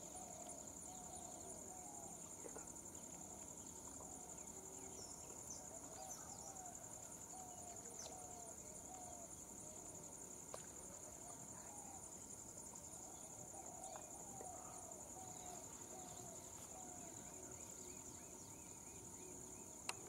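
Faint steady high buzz of insects, with a soft low chirping call repeated over and over beneath it.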